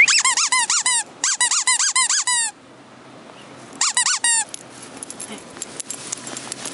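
Rubber squeaky toy squeezed again and again during a tug game with a small puppy: quick squeaks about six a second, each rising and falling in pitch, in three runs, the last a short one about four seconds in.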